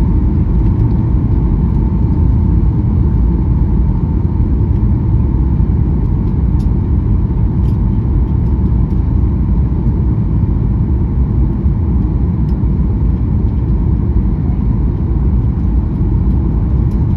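Cabin noise of a Boeing 737-800 airliner on approach: a steady low rumble of airflow and its CFM56 turbofan engines, with a faint steady whine above it.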